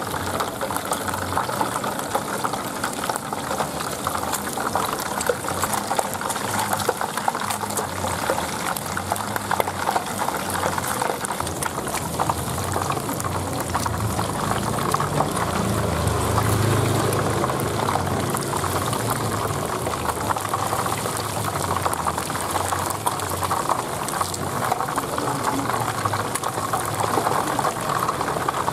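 Hot oil sizzling and bubbling steadily around a whole catfish deep-frying in a wok, a dense, even crackle.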